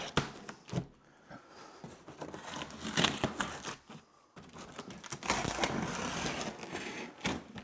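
Packing tape being slit and torn off the top of a cardboard box, with the cardboard scraping and rustling under the hands and a few sharp clicks; a longer rough stretch of tearing begins about five seconds in.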